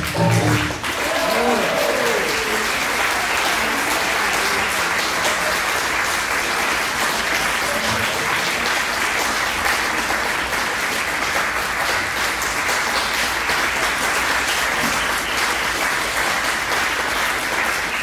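Audience applauding steadily in a hall as the music ends.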